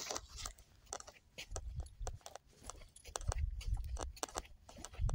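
Footsteps crunching on dry gravelly dirt, irregular clicks over a low rumble of wind on the microphone.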